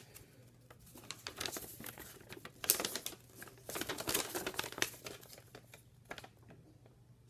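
Folded paper instruction leaflet being unfolded and handled: irregular crinkling and rustling of the paper, coming in clusters that are densest around the middle and thin out near the end.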